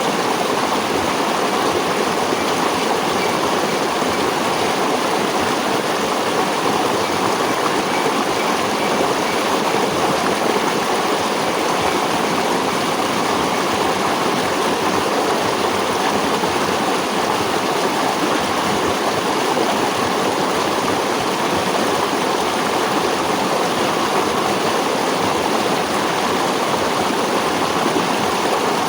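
Water of a stream rushing and splashing in a steady, unbroken rush.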